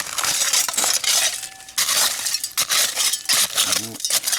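Digging through dump soil full of broken glass: repeated scraping with glass shards clinking against each other.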